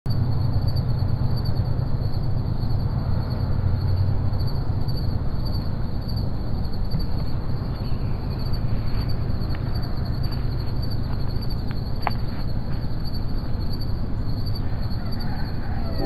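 Outdoor insect chorus at dawn: a steady, finely pulsing high trill over a steady low rumble. A few faint short calls come through in the middle, with one sharp brief chirp about three-quarters of the way in.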